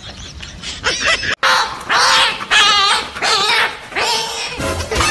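A run of four loud, high yelping and whining cries with a wavering pitch. They begin after an abrupt cut about a second and a half in.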